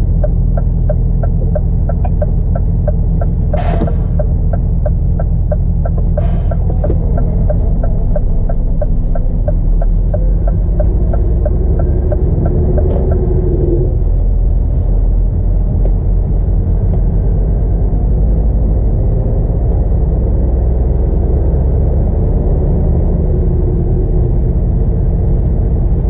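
Scania R450 lorry's 13-litre straight-six diesel running steadily, a low rumble heard from inside the cab. For the first ten seconds or so the turn indicator ticks about two or three times a second, then stops.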